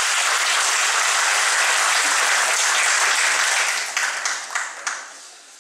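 Audience applauding, dying away into scattered claps after about four seconds.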